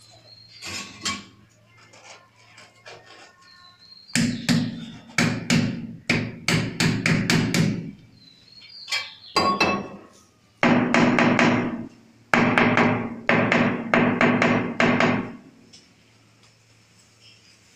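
Quick knocking on a large ceramic wall tile to bed it into the mortar, in several runs of rapid strokes, light at first and loudest in the second half.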